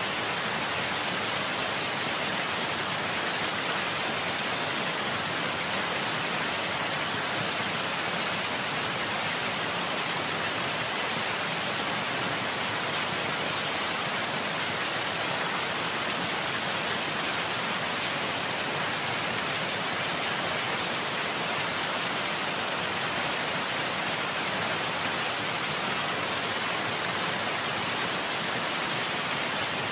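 Steady, even rush of water: a continuous hiss with no separate splashes or drips.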